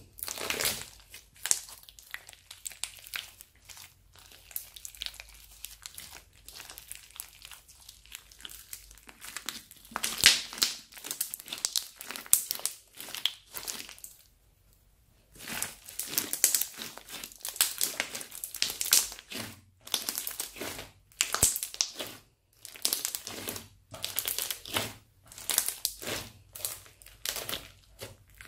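Thick crunchy slime studded with small plastic pieces and beads being squeezed and kneaded by hand. It gives irregular bursts of crackling, with a short pause about halfway through.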